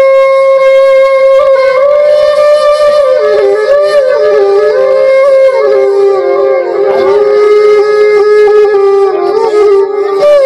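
Side-blown flute (bansuri) playing a solo melodic interlude. It opens on a long held note, then drops lower about three seconds in and plays winding phrases with quick ornaments and slides.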